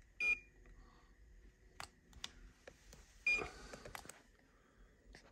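Two short beeps about three seconds apart, with a few faint clicks between them.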